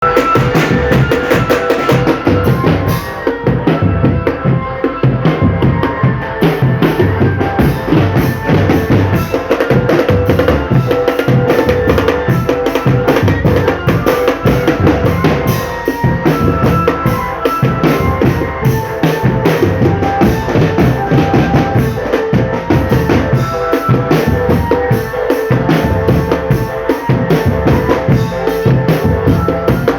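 Marching drum band playing: snare and bass drums beat a fast, steady rhythm, with held melody notes carried over the drums.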